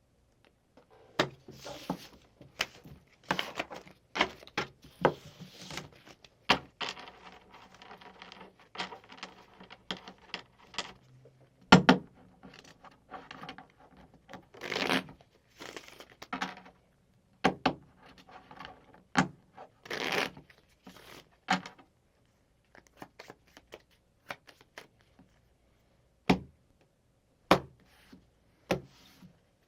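Playing cards being handled on a table, shuffled and dealt: a dense run of papery riffles, slides and snaps with a few louder swishes, thinning out to separate sharp taps in the last third.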